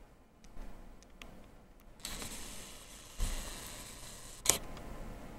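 Handling noise from a handheld camera: a few faint clicks, then a steady hiss from about two seconds in, with a thump about three seconds in and a sharp click near the end.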